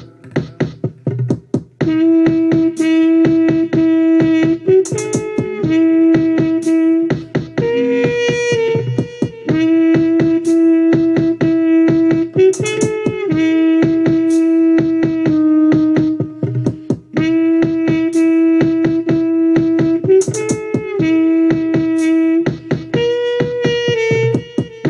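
Pocket trumpet playing long held notes, mostly on one pitch with short steps up to higher ones, over a steady looped beatboxed rhythm. The trumpet comes in about two seconds in.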